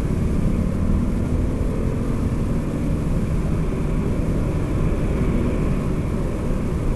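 Steady low rumble of a car driving slowly in traffic: engine and road noise picked up by a dashcam.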